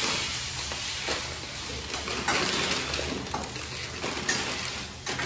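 Chopped onions and tomatoes sizzling in a steel kadai on a gas stove, stirred with a spatula that scrapes and clicks against the pan a few times.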